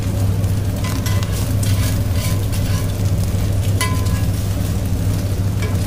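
Egg-coated paratha sizzling on a flat griddle, with a metal spatula scraping and clinking against the hot plate, twice ringing briefly. A steady low hum runs underneath.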